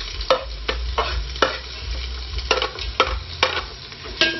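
Onion and ginger frying in hot oil in a large aluminium pot, sizzling, while a spoon stirs them, knocking and scraping against the pot about twice a second.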